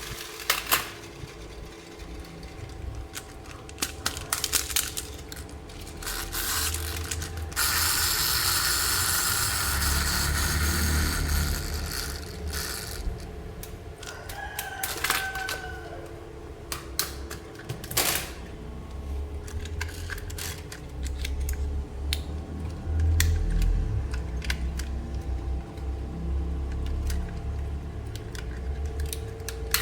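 Hands unboxing and handling small plastic toys and packaging: many light clicks and knocks of plastic parts. About eight seconds in, a steady rustle lasts roughly five seconds, like plastic packaging being worked. A brief faint tone sounds near the middle.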